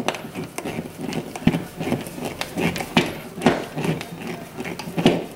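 Screws being turned in by hand with a screwdriver through a plastic keypad back plate: an uneven run of small clicks, scrapes and a few sharper knocks.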